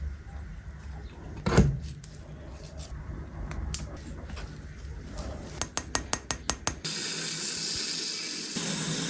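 Workshop tool handling: a single knock about a second and a half in, then a quick run of about eight clicks. Near the end a steady rasping hiss of abrasive work on the blade starts, filing or sanding.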